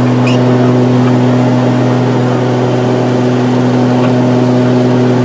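Inside the cabin of a Beechcraft Duke B60, the twin turbocharged six-cylinder piston engines and propellers drone steadily in flight, with a deep, even hum.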